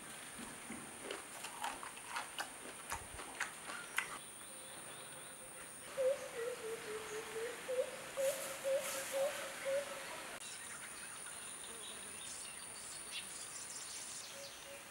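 Crisp crunching and chewing of a raw garden egg for the first few seconds, then outdoor ambience: a steady high-pitched insect drone and a wavering bird call lasting about four seconds in the middle.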